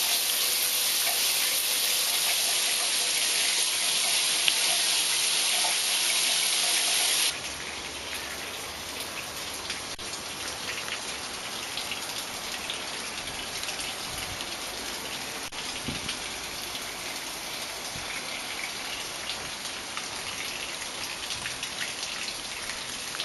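Shower spray hissing steadily, then after a sudden drop about seven seconds in, quieter shower greywater trickling and splashing along an open split-bamboo channel.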